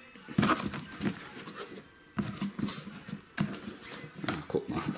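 Cardboard shipping carton being opened by hand, its taped flaps pulled apart with crackling and rustling of cardboard and plastic wrapping. The sound comes in three bursts.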